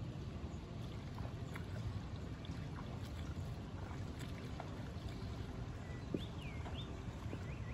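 Steady low rumble of wind buffeting the microphone over an open rice paddy, with a few short chirps of birds near the end.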